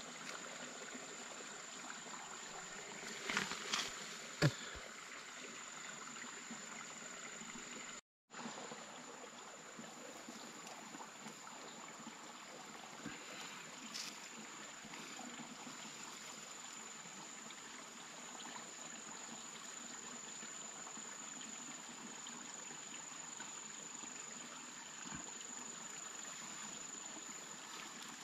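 Water trickling and flowing steadily, with a steady high thin tone over it. A few short knocks or splashes come about three to four seconds in.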